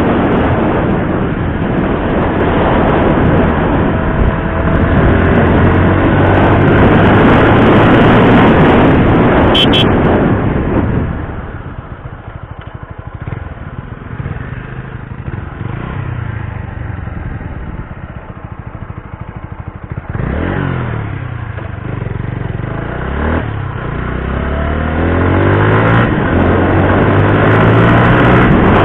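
TVS Apache RTR 160 4V's single-cylinder engine running hard for about the first ten seconds. It then drops back to a quieter, lower-revving run. About two-thirds of the way in the revs climb again in several rising steps, and it is loud again near the end.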